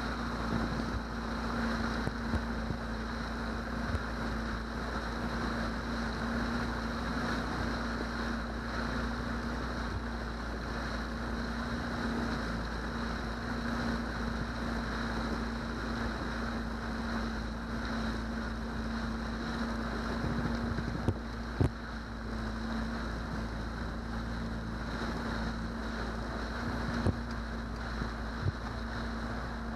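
Johnson 90 hp V4 two-stroke outboard running steadily, driving the boat along, with wind on the microphone and a few brief knocks in the second half.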